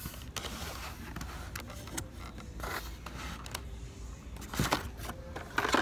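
Hot Wheels blister cards and the cardboard shipping case rustling and scraping as a hand flips through and pulls the carded cars, in a series of short bursts with the loudest two near the end.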